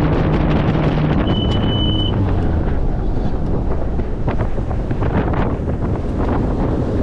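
Bass boat running at speed: heavy wind rush on the microphone with hull and water noise. The outboard's steady drone stops within the first two or three seconds, which the owner puts down to a blown lower unit. A short high beep sounds about a second and a half in.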